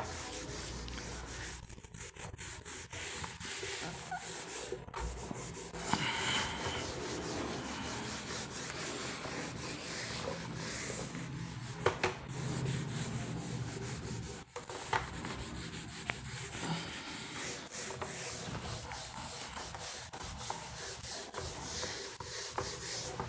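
Rubbing and scratching noises with many small scattered clicks.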